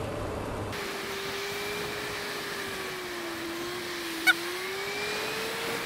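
Suzuki Bandit's inline-four engine running steadily at road speed, its note dipping slightly and rising again as the throttle changes, under a steady rush of wind and wet-road noise. A single short click about four seconds in.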